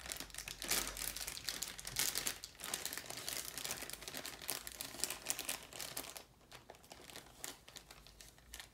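Clear plastic zip-top MRE beverage bag filled with water crinkling as it is squeezed to push the air out and zipped shut. The crinkling is busiest for about six seconds, then thins to quieter rustles.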